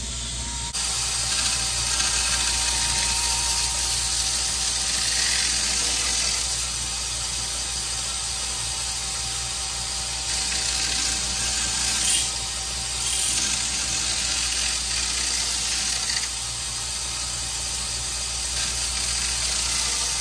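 A power grinder running steadily, grinding the steel rails of a chainsaw bar square. A steady whine sits under a rasp of metal that swells and fades as the bar is worked against it.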